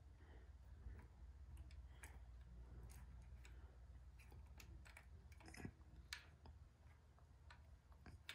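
Faint, irregular small clicks of metal parts as a hydraulic disc brake caliper and its mounting bolts are handled and fitted at a bicycle fork's brake mount, over a low steady hum.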